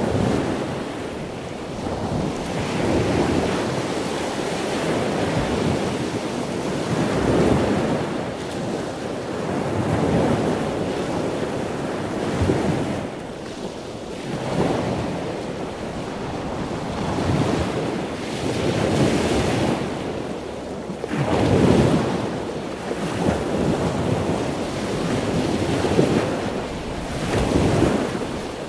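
Ocean surf: waves breaking and washing in, swelling and fading every few seconds.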